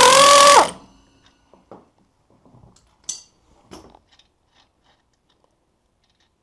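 Pneumatic air ratchet whirring as it spins out a strut's lower mounting bolt, its pitch wavering, then cutting off abruptly under a second in. A few faint metallic clicks and light knocks follow as the loose bolt is worked out of the mount by hand.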